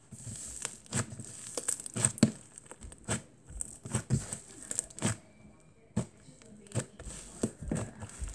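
Soft butter slime, made with a lot of Daiso clay and dotted with foam beads, being pressed, pulled apart and rolled by hand on a table: a string of irregular soft clicks, pops and crinkly squelches, one or two a second.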